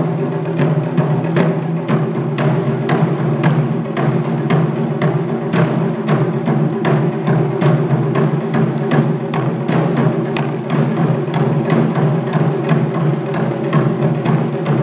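Taiko ensemble playing: several players strike barrel-shaped nagado-daiko drums on slanted stands with wooden bachi sticks. The drums keep up a fast, steady beat of evenly spaced, heavy strokes.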